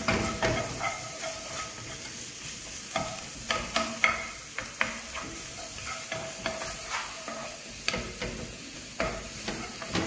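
Chopped onion and garlic sizzling in hot oil in a frying pan while being stir-fried, with the spatula scraping and knocking against the pan many times.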